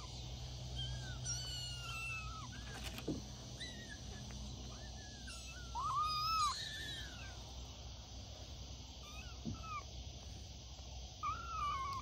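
Tiny tabby kitten mewing repeatedly in short, thin, high-pitched cries that rise and fall, the loudest about halfway through.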